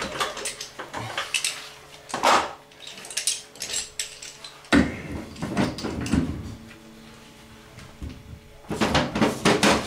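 Gloved hands handling and screwing together black iron pipe fittings on a taped threaded nipple: several short bursts of knocking and scraping metal.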